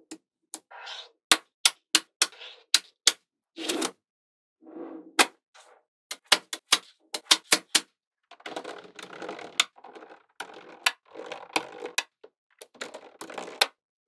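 Small magnetic balls snapping together with sharp clicks as rows of them are set against a slab of balls. The clicks come thick in the first half; in the second half there are longer stretches of rattling as the rows shift and settle into place.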